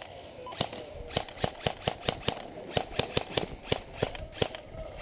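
Airsoft guns firing in an exchange: sharp, irregular pops, several a second and of varying loudness.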